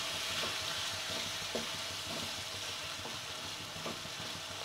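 Beef pieces frying with onions and spice paste in hot oil in a non-stick pan: a steady sizzle, with a spatula stirring through the meat and a few faint scrapes.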